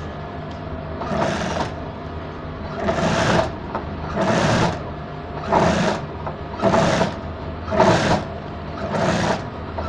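Industrial sewing machine with a single foot stitching piping onto a neckline in short bursts, about one every second or so, stopping and starting as the fabric is turned around the curve, over a steady hum.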